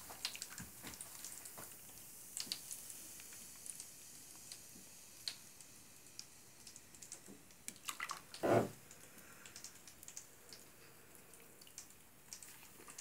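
Bath bomb fizzing as it dissolves in bathwater, with scattered small crackles and pops over a faint hiss. One louder slosh of bathwater about eight and a half seconds in.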